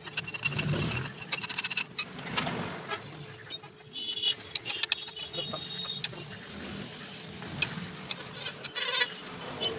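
Irregular clinks and knocks of metal tools and parts being handled, a few of them ringing briefly.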